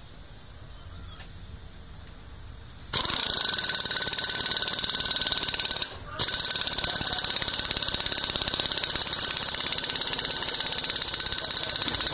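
Pneumatic impact wrench hammering on the clutch centre nut of a Bajaj CT100 engine. It starts suddenly about three seconds in, stops briefly around the middle, then runs again.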